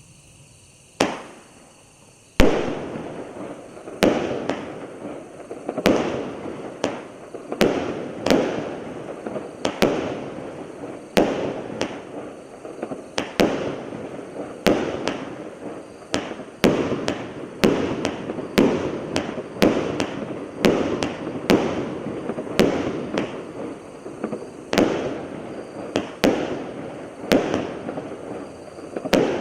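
Hallmark Fireworks 'Inferno' 48-shot barrage cake firing: a single shot about a second in, then from about two and a half seconds a steady run of shots, roughly one to two a second, each bang trailing off in a short crackling burst.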